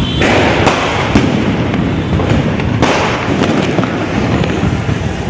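Firecrackers going off in the street: a continuous crackle with several sharp bangs, the loudest about a second in.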